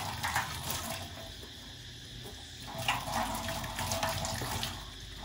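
Kitchen tap running into a stainless-steel sink, the stream splashing unevenly as hands and a small monkey's paws are rinsed under it.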